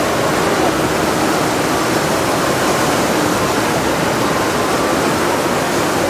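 Rushing white water of a raft ride's rapids, churning steadily over rocks in the channel.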